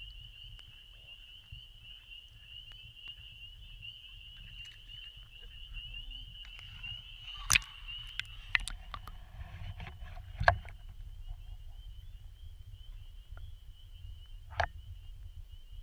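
A dense, steady high-pitched chorus of calling frogs, typical of spring peepers at a vernal pool, runs throughout over a low water rumble. Four sharp knocks from the camera being moved in the water cut through, the loudest about ten seconds in.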